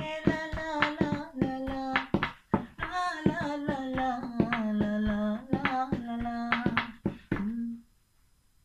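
A man singing a Sinhala love song unaccompanied except for a rhythm he slaps out with his hands on a padded bag. The slaps fall steadily between and under the sung notes, and voice and slaps stop together shortly before the end.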